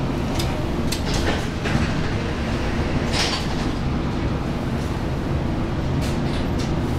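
Inside a Portland MAX light-rail car standing at a station platform: a steady low hum from the car's onboard equipment, with a few light knocks and a short hiss about three seconds in.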